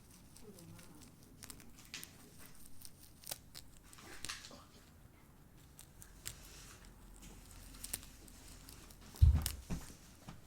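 Crinkling and rustling handling noise with scattered small clicks, and one louder thump about nine seconds in.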